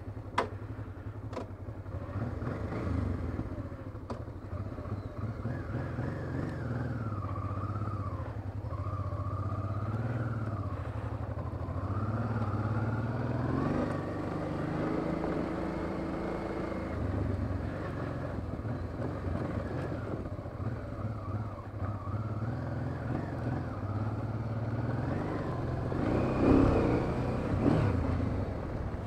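Honda Transalp motorcycle engine running as it rides along a rough gravel track, its revs rising and falling. A single sharp click comes just after the start, and the engine swells louder near the end.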